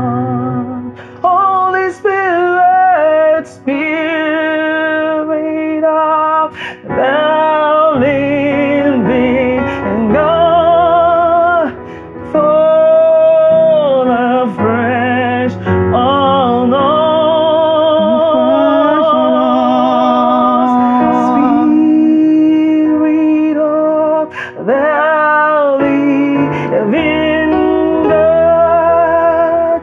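Woman singing a slow gospel worship melody in long held notes with wide vibrato and sliding pitch, accompanied by an electronic keyboard.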